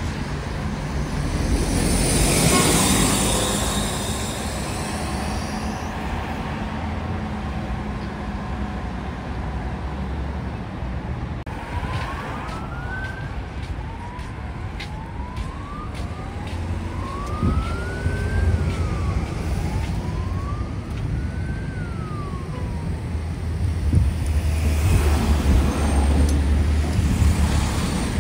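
Road traffic with the low rumble of coach diesel engines and a vehicle passing close about two seconds in. In the middle a faint emergency-vehicle siren wails in several rising and falling sweeps. Near the end a coach's engine rumbles louder as it moves past.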